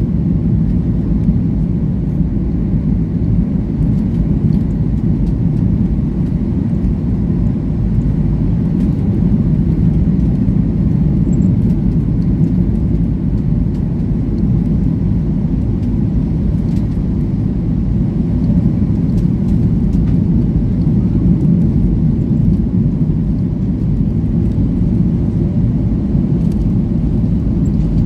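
Steady rumble inside a Boeing 737 MAX 8 airliner's cabin: engine and airflow noise, even in level with no surge.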